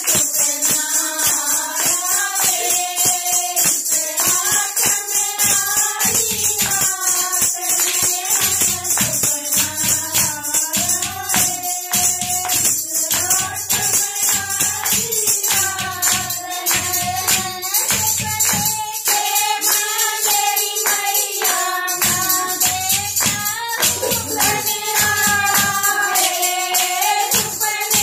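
Women singing a Haryanvi devotional bhajan together, kept in time by a clay pot (ghara) struck with a flat beater, hand claps and jingling clappers in a steady beat.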